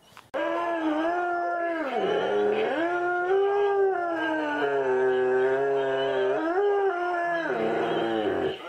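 Yellow Labrador retriever howling in one long, unbroken howl that wavers in pitch, dipping about two seconds in and falling away near the end.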